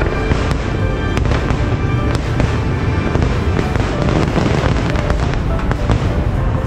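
A fireworks show: a string of sharp cracks and bangs over a steady low rumble, with the show's music playing.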